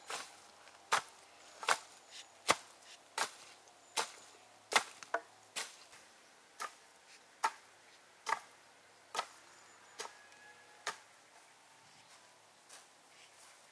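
A rake working through a pile of dry, spiky chestnut burrs, with a sharp knock at each stroke, a little more than once a second, stopping about eleven seconds in.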